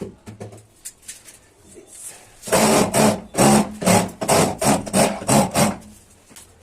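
Steel trowel scraping tile adhesive in quick back-and-forth strokes, about eight in a row, starting a couple of seconds in and stopping shortly before the end.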